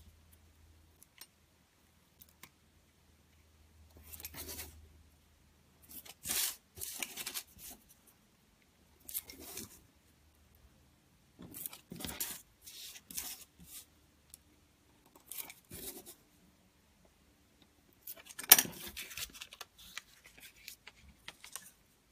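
Craft knife slicing the corners off printed tissue paper laid over card: a series of short, scratchy cuts and paper rustles a second or more apart, with one sharper, louder one about two-thirds of the way through.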